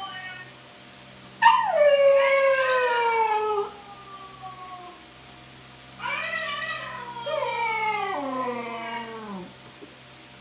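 Husky puppy howling in two long calls, each falling in pitch. The first starts suddenly about a second and a half in. The second begins about six seconds in and slides down lower and lower before it stops.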